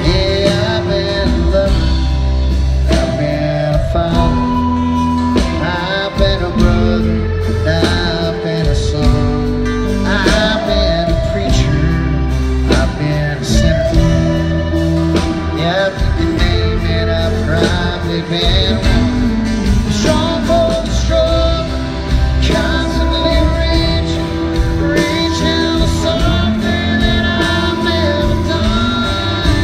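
Live country band playing a song: strummed acoustic guitar, electric guitar and drums, with a man singing.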